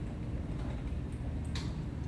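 Light clicks of a socket ratchet backing a spark plug out of a lawn mower's OHV engine, the clearest about one and a half seconds in, over a steady low rumble.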